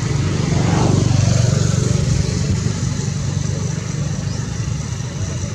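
A motor vehicle's engine rumbling, swelling about a second in and then slowly fading.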